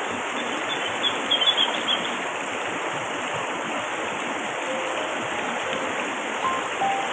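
Shallow, fast-flowing river running over rocks and gravel: a steady rush of water.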